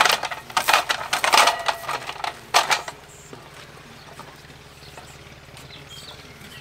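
Ratchet spanner clicking in four quick bursts over the first three seconds as a bolt on a metal post is undone.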